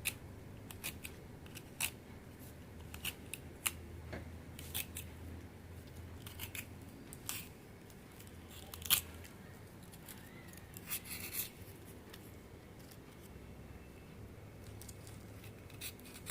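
Giloy stems being cut into small pieces: a series of sharp, irregular snips, the loudest about nine seconds in.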